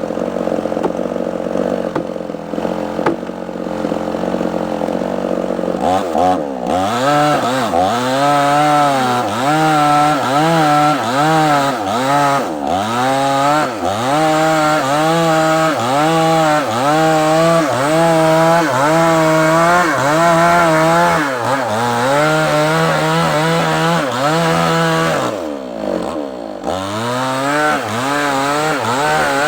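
Chainsaw cutting into a large sengon log: the engine runs at a steady pitch at first, then from about six seconds in its pitch dips and recovers about once a second as the chain bites into the wood, with a brief drop near the end before the cut goes on.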